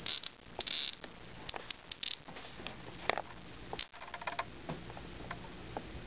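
A cicada giving short, harsh buzzes when touched: two brief buzzes in the first second and a shorter one about two seconds in. Scattered clicks and rustles from handling follow.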